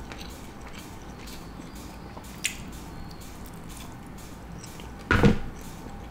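Close-miked chewing of a mouthful of chicken, with faint, irregular wet clicks. There is a sharper click about two and a half seconds in and one brief, much louder sound about five seconds in.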